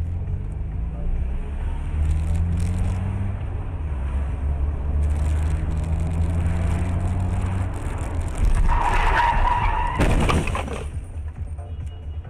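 Car engine revving up through the gears as the car accelerates, its pitch rising three times. Then tyres squeal under hard braking, about nine seconds in, and a sharp knock of impact follows about ten seconds in.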